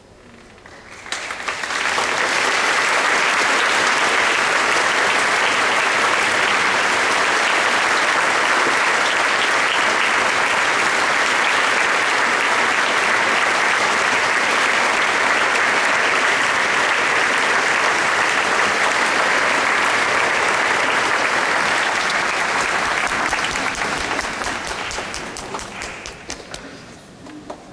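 A large audience applauding: the clapping swells in about a second in, holds steady and loud, then dies away over the last few seconds.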